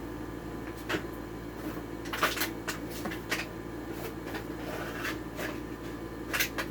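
Scattered light clicks and knocks of handling a die-cast Hot Wheels toy car and its plastic packaging, about five sharp clicks, two of them close together near the end.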